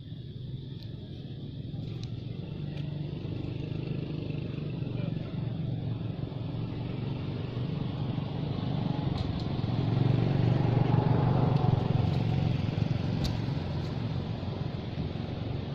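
A motor vehicle's engine running with a steady low rumble, growing louder until about two-thirds of the way through and then easing off a little. A few faint sharp ticks sound over it.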